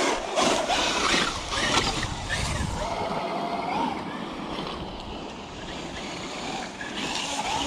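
Traxxas UDR RC truck driving over rough dirt: the electric motor whines, rising and falling in pitch around the middle, under a steady rush of tyre and terrain noise.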